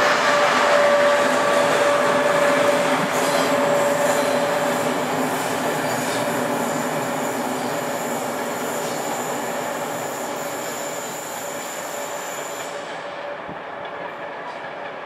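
Passenger train of coaches with an FS E.464 electric locomotive rolling past on curved track, with steady squealing tones over the rumble of the wheels. The sound fades steadily as the train draws away, and the highest squeal cuts out near the end.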